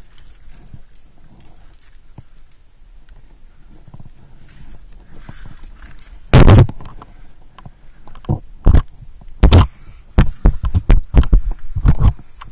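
Loud knocks and scuffs as a climber's hands and arm move on the rock close to a head-worn camera. The first half is quiet rustling, then about six seconds in come sharp bumps, ending in a quick irregular cluster near the end.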